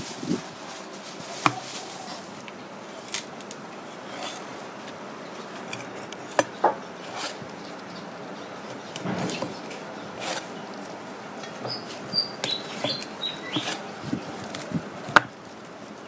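Knife blade tapping and scraping on a plastic cutting board while slicing grouper fillet, in scattered, irregular clicks and knocks, the sharpest one near the end. A few short, high bird chirps come about three-quarters of the way through.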